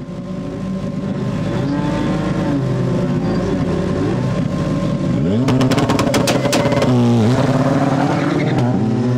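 Rally car engine revving hard, its pitch rising and falling through the gears. Midway it gives a quick rattle of sharp cracks, then drops sharply in pitch and climbs again.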